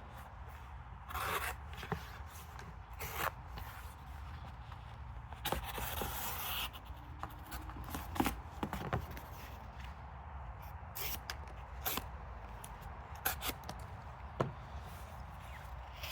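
Folding pocketknife blades slicing through cardboard: scattered short scraping cuts, with one longer slice about six seconds in.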